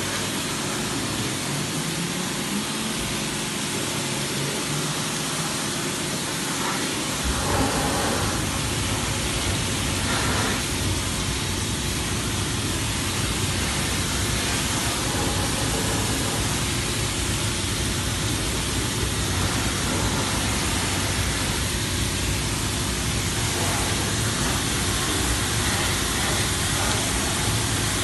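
Pressure washer jet spraying the underside of a vehicle: a steady, loud hiss of water. A deeper low rumble joins in about seven seconds in and carries on.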